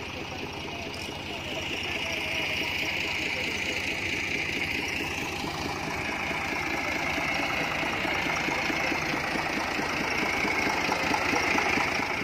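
Ghazi (New Holland) farm tractor's diesel engine idling steadily with an even, rapid beat, growing a little louder about two seconds in.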